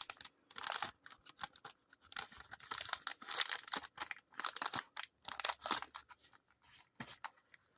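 A plastic card bag crinkling and rustling in many short, irregular crackles as it is handled and a trading card is slipped into it.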